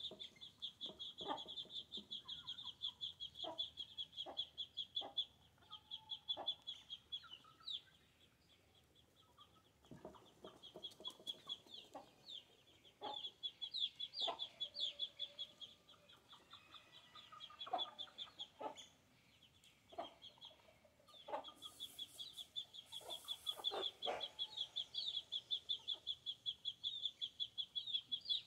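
Chickens clucking now and then while feeding, over a continuous high, rapidly pulsing trill that fades twice for a few seconds.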